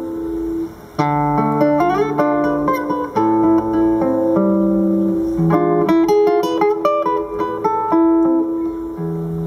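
Instrumental introduction of a song: acoustic guitar plucking and strumming chords, with held melody notes from the accompanying violin and accordion. The playing drops back briefly just before the one-second mark, then carries on.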